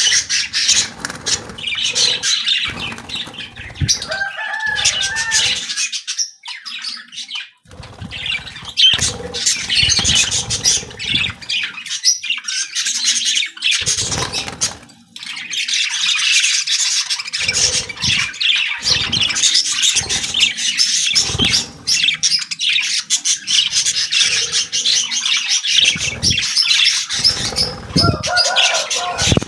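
A colony of small birds chirping and calling together, a dense continuous chatter with many sharp clicks and wing flaps mixed in, and a few lower, harsher calls.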